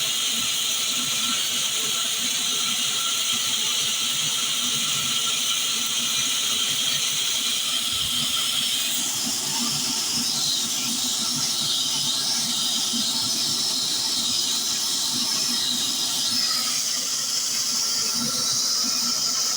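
Heavy wood-cutting saw machine running, a steady high-pitched whine and hiss that shifts and roughens for several seconds midway.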